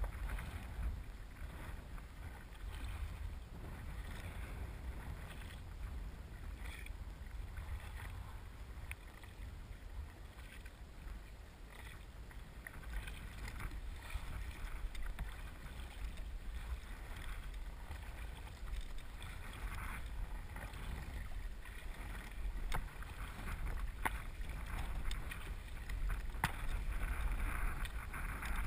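Kayak paddles dipping and splashing in the water as a tandem kayak is paddled along, with wind rumbling on the microphone. The splashing gets stronger in the second half, and a few light sharp ticks are heard.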